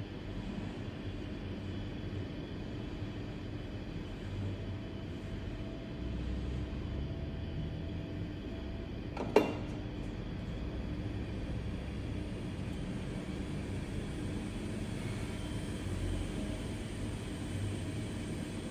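Steady low background hum and rumble, with one sharp click about halfway through.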